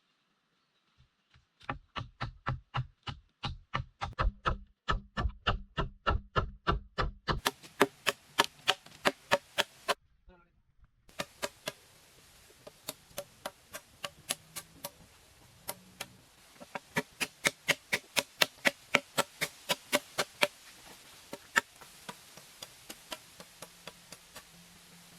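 Rapid chopping with a blade on wood, about three to four sharp blows a second. The blows break off for about a second near the middle, then resume and thin out near the end.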